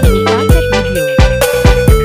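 Background music with a steady beat: electronic pop with kick drums, bass and a held synth melody that steps down in pitch.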